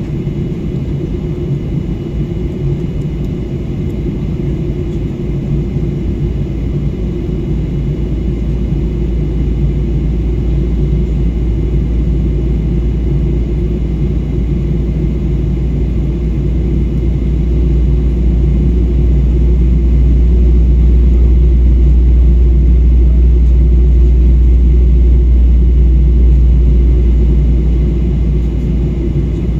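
Steady low rumble of a jet airliner's engines and airflow heard inside the cabin, with a faint steady high whine. It swells gradually partway through and eases off again near the end.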